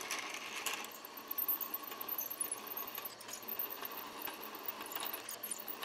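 Drill press running steadily as a twist drill bores into a steel part clamped in the drill press vise.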